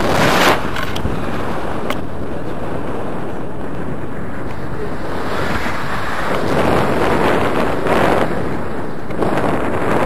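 Airflow buffeting the microphone of a pole-held camera on a paraglider in flight: a steady rushing wind noise that swells and eases several times.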